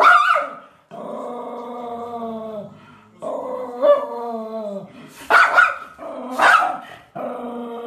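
Golden retriever puppy vocalizing in a run of long drawn-out calls, broken by a few short sharp barks. The loudest barks come right at the start and between about five and six and a half seconds in.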